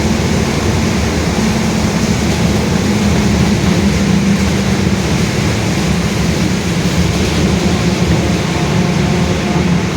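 Rear differential of a Mercedes-Benz OF-1721 bus droning very loudly while the bus is driven: a steady low howl that drifts slightly in pitch over the road and engine noise.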